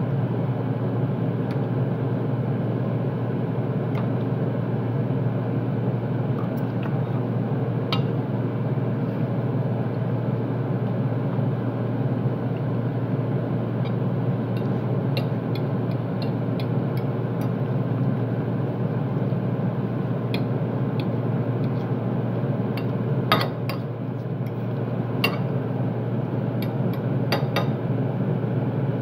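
Steady low drone of kitchen equipment, with a metal fork clinking and scraping on a ceramic plate several times, most sharply about 23 seconds in.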